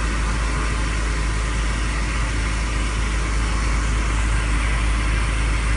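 Milling machine running steadily during a test cut in Inconel 718: a constant low hum under an even hiss, with no separate strikes or changes.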